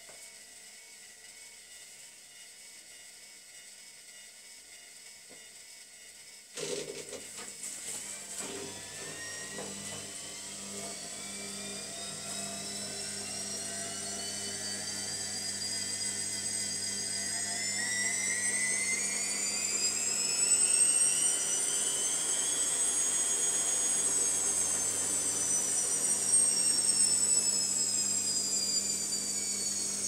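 Zanussi Lindo300 washing machine starting an intermediate spin: about six seconds in a sudden start brings a steady hum, then the motor whine climbs in pitch and loudness as the drum speeds up, easing slightly in pitch near the end.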